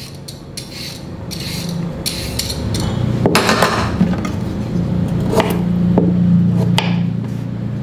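A vegetable peeler scraping the skin off a carrot in short repeated strokes, then a kitchen knife cutting pieces off the carrot, with a few sharp knocks on the wooden cutting board. Soft background music plays underneath and grows louder.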